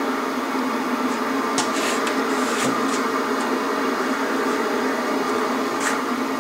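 Static hiss from the speaker of a 1960s Marconi 11-inch portable vacuum-tube TV tuned to a channel with no usable signal, a steady rushing noise. A few light clicks from its tuning knobs come through it, about two seconds in and again near the end.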